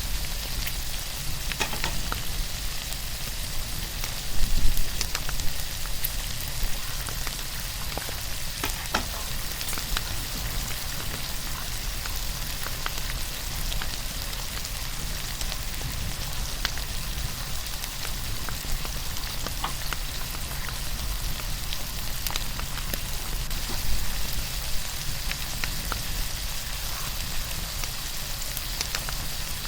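Saga beef steak sizzling as it cooks over a campfire: a steady frying hiss with scattered sharp pops, briefly louder about four seconds in.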